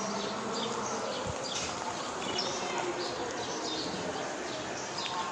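Small birds chirping: many short high calls repeating over steady background noise.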